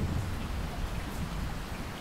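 Heavy rain splashing into standing water on a flat surface, over a low rumble that eases slightly.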